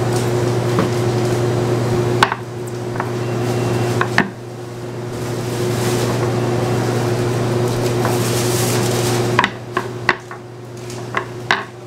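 A plastic rolling pin and hands working dough on a board, giving a few sharp light knocks: one about two seconds in, another about four seconds in, and a quick cluster of taps near the end. Under them runs a steady low machine hum, which drops away briefly a few times.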